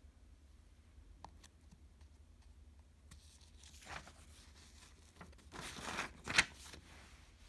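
A few light clicks, then a few seconds of rustling, crinkling handling noise with a sharp crackle near the end.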